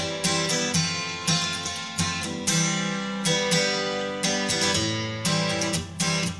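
Background music: strummed acoustic guitar playing a steady rhythm.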